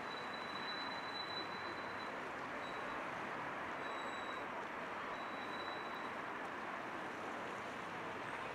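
Steady city street ambience: an even background noise of distant traffic and surroundings with no distinct events, and a faint high whine that comes and goes.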